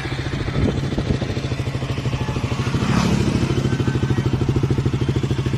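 KTM RC 200's single-cylinder engine idling through an Akrapovic slip-on exhaust with its dB killer fitted, just after starting: a steady, even exhaust beat that gets a little louder about three seconds in.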